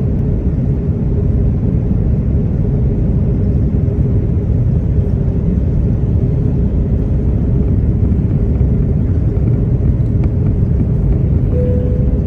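Steady cabin noise inside an Airbus A330-323 airliner on approach: a loud, even low rumble of airflow and its Pratt & Whitney PW4000 engines, with a steady hum running through it. A short steady tone sounds near the end.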